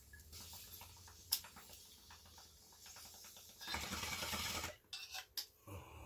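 Water in a glass bong bubbling steadily as smoke is drawn through it, with a sharp click about a second in. Near the four-second mark a louder rush of air lasts about a second as the chamber is cleared.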